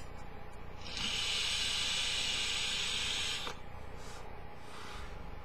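Joyetech Cubis sub-ohm tank with a 0.5 ohm stainless steel coil being drawn on at 32 watts: a steady hiss of air and firing coil lasting about two and a half seconds. A soft breath out follows.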